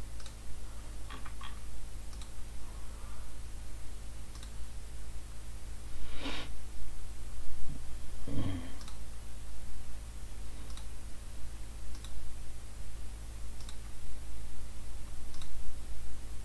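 Scattered single computer mouse clicks, about nine spread unevenly, over a steady low electrical hum, with two louder, longer soft noises around the middle.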